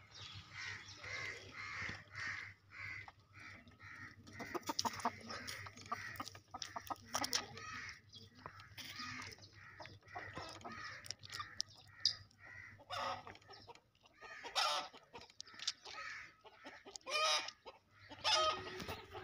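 Chickens clucking over and over in short repeated calls, with louder, longer calls coming in the second half.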